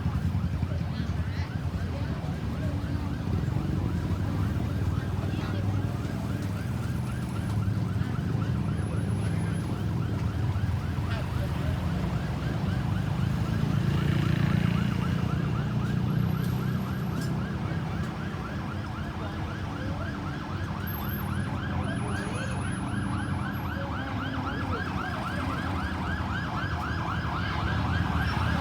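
Ambulance siren on a fast repeating yelp, several rising-and-falling sweeps a second, growing clearer toward the end, over a steady low rumble of road traffic.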